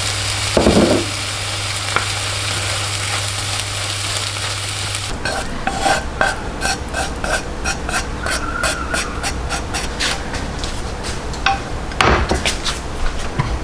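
Food sizzling in a frying pan, with a low hum that stops abruptly about five seconds in. After that, a utensil stirs and scrapes the pan in quick, repeated strokes.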